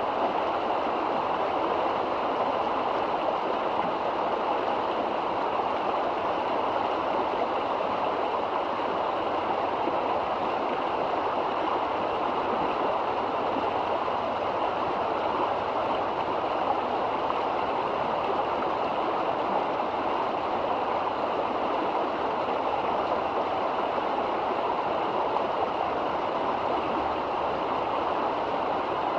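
River water flowing: a steady rushing noise with no breaks or separate splashes.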